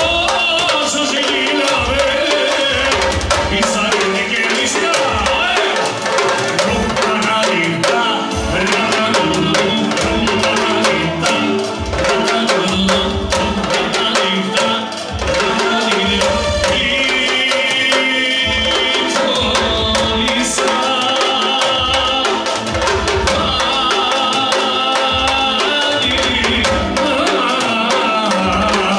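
Live band music with a set of stick-beaten drums keeping a steady, driving beat under a melody line.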